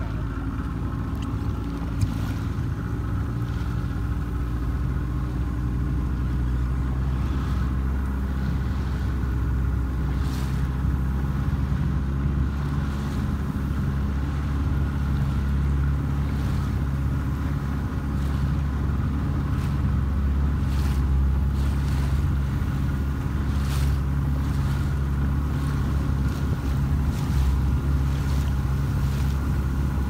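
Boat engine running steadily, a low even hum.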